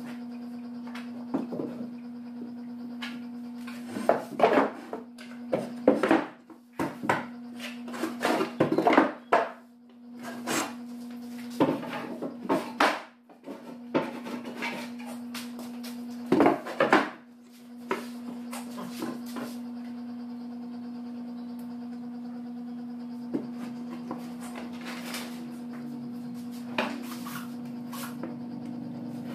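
Plywood panels handled and fitted into a plywood cabinet frame: irregular knocks, bumps and scrapes of wood on wood, busiest in the first two-thirds and thinning to a few taps later. A steady low hum runs underneath.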